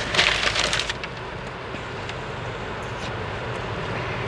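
A brief crackling rustle in the first second, then the steady hum and rumble of a car heard from inside the cabin.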